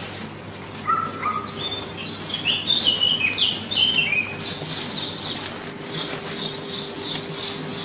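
Bird song: a run of varied short chirps, then a fast series of repeated high notes from about halfway in, over a steady low hum.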